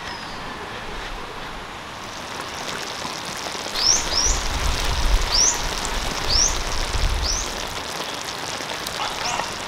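Shrimp sizzling and bubbling in butter sauce in a wok: a steady hiss with fine crackles. A bird chirps about six times in the middle.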